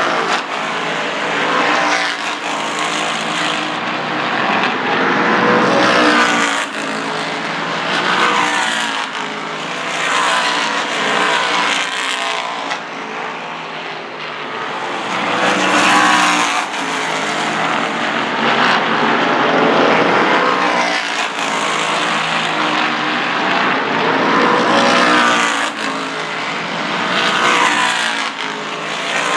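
Open-wheel modified race cars' V8 engines running at speed around the track, rising and falling in pitch in repeated waves every few seconds as cars go by and accelerate off the corners.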